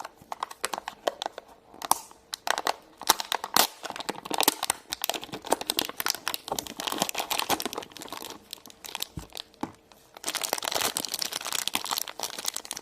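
Crinkly plastic toy packaging being crumpled and torn open by hand, in irregular crackles that ease off briefly and then come back denser near the end.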